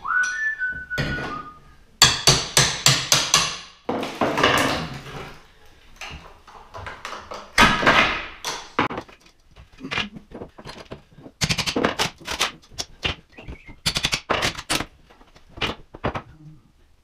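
Hammer knocking out a ceramic tile backsplash and plaster below a kitchen window, in bursts of quick sharp blows with longer crunching stretches between.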